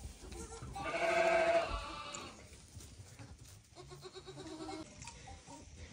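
Goat bleating: one clear call about a second long, starting about a second in, then a fainter, lower call near the fourth second.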